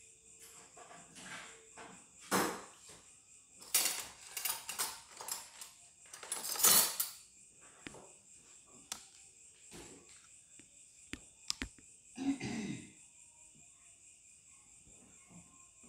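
Crickets chirring steadily in the background, with several brief rustling bursts and a few sharp clicks over them.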